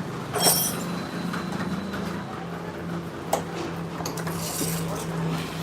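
Metal tools and engine parts clinking while the oil filter cover is being taken off a motorcycle engine, with a loud clink about half a second in and another after about three seconds, over a steady low hum.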